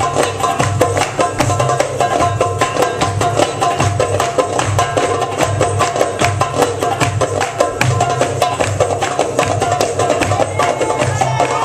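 Belly dance music: Middle Eastern-style music driven by a fast, even hand-drum rhythm.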